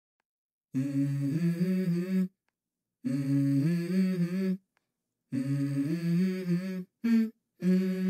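Background music: a wordless hummed vocal melody, starting a little under a second in. It comes in short phrases of about a second and a half each, separated by brief pauses.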